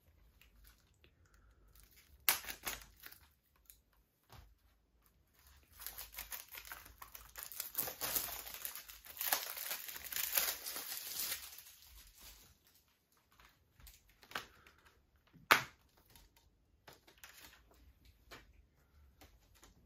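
Plastic shrink wrap being torn and crinkled off a Blu-ray case, with a sharp click about two seconds in and a dense, louder crackling stretch in the middle. A single sharp snap comes a few seconds before the end.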